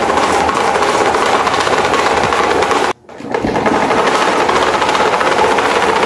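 Broken electric desk fan fitted with a two-blade propeller, running with a fast, steady mechanical rattle. The sound cuts out for a moment about halfway through, then comes back much the same.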